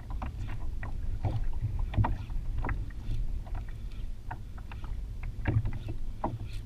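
Water slapping and splashing against a kayak hull in irregular short knocks, two or three a second, over a steady low wind rumble on the microphone.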